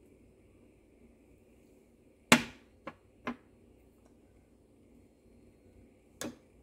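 Sharp knocks of glass kitchenware clinking: a loud one about two seconds in, two lighter ones just after, and another near the end.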